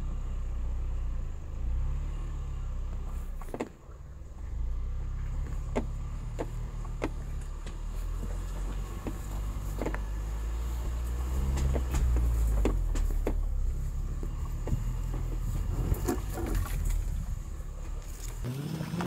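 Ford Bronco engine running at low revs in low-range crawl gear while descending a rocky trail, its pitch rising and falling a little. Scattered sharp clicks and knocks from rocks and gravel under the tyres.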